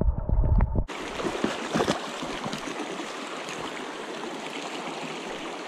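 Heard underwater at first, a stream's current is a muffled low rumble with sharp clicks. About a second in it switches abruptly to the steady open-air rush of a shallow, clear-water stream running over rocks.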